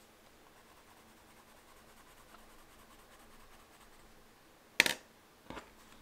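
Faint scratching of a water-soluble wax pastel crayon scribbled across textured watercolor paper. Near the end comes one sharp click, then a smaller knock, as the crayon is put back into its metal tin.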